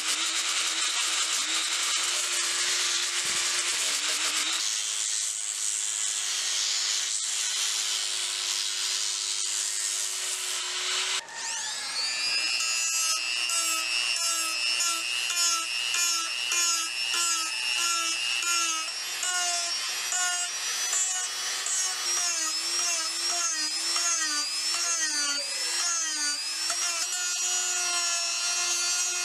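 Small electric power tool running on wood, a steady motor whine under a rasping noise. About eleven seconds in it stops briefly and starts again, and after that its pitch dips and recovers again and again as it works under load.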